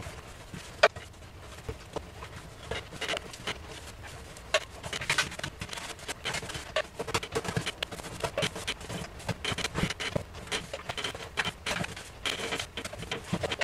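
Small paintbrush dabbing and stroking paint onto a plastic shower pan: irregular light clicks and scrapes, coming thicker from about five seconds in.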